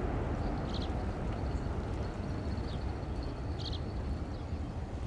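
Distant Airbus A380 taxiing, its engines making a steady low rumble. Two short bird chirps sound over it, about a second in and again near the end.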